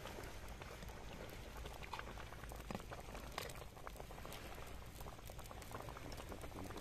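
Fish soup boiling hard in a wide metal pan: steady bubbling with many small pops, and a few louder clicks near the middle.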